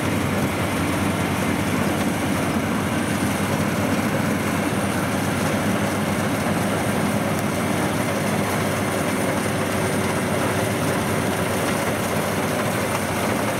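Eurotec WD 102PRO rice combine harvester running steadily while it cuts a standing rice crop: a low engine hum under the even noise of the cutting and threshing machinery.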